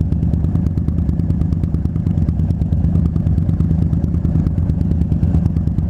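Harley-Davidson Dyna Street Bob's V-twin engine idling steadily with an even, rapid lope, the bike stopped in neutral.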